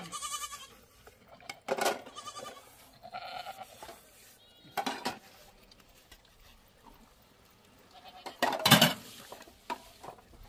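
Metal pots and dishes clanking as they are washed in metal basins, with a goat bleating a few times in the first few seconds. The loudest clatter comes near the end.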